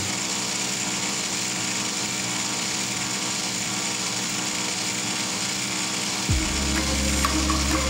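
JUKI industrial sewing machine running steadily, with a deeper motor hum coming in about six seconds in.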